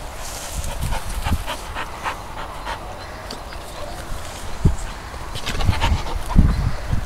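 A dog panting, with grass rustling and low knocks of handling noise, heaviest about six seconds in.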